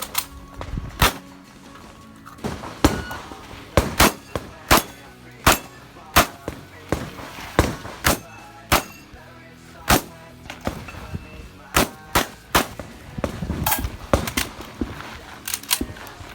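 12-gauge Derya MK-12 magazine-fed shotgun fired in a rapid string of about fifteen shots at an uneven pace, some in quick pairs, with a lull of a couple of seconds about two-thirds of the way through.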